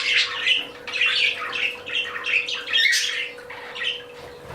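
A flock of budgerigars chattering, a dense string of short, quick calls, over a faint steady hum.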